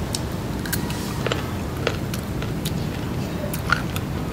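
Close-up crunching and chewing of crispy deep-fried baby duck egg: scattered, irregular crisp crunches over a steady low rumble.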